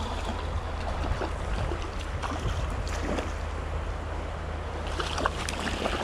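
Hooked rainbow trout splashing and thrashing at the surface of a shallow creek while being played in, several brief splashes with the loudest near the end. Under them runs the steady wash of the creek with a low wind rumble on the microphone.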